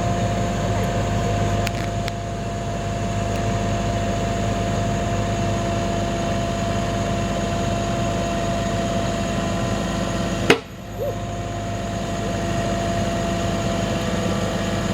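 An engine running steadily at constant speed with a steady hum. About ten and a half seconds in there is a sharp click, the sound dips briefly, then it carries on.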